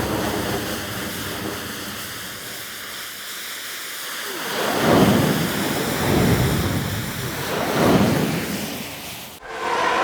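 A processed, noise-heavy sound-effect roar, a layer of a TIE fighter flight sound built from elephant calls, analog synth and train noise. It rises and falls in three swooping swells in the second half, then cuts off abruptly near the end.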